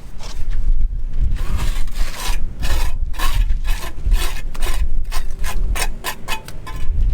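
Repeated rasping, scraping strokes, a few a second and uneven, over a low steady rumble.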